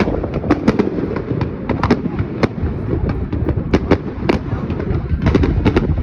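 Fireworks going off in quick succession: many sharp bangs and cracks, several a second, over a steady low rumble.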